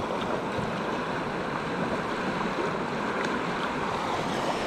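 A fast-flowing river running high, rushing past the bank in a steady wash of water noise.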